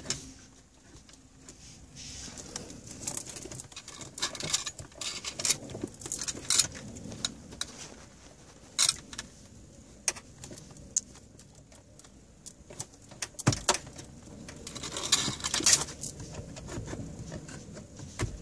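Irregular plastic clicks and rustling as the car stereo head unit and its wiring harness are handled and pushed into the dash.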